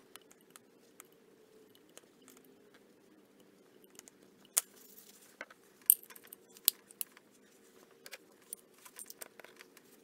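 Small steel wrench parts handled and fitted together by hand: scattered light metallic clicks and clinks, two sharper clinks near the middle and a quick run of clicks near the end, over a faint steady hum.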